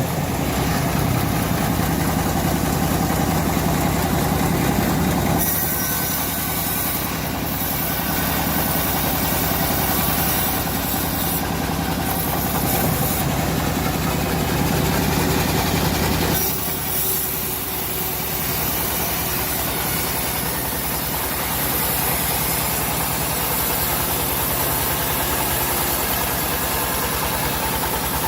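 Engine of a homemade bandsaw mill running steadily, with its sound changing character about five seconds in and again about sixteen seconds in.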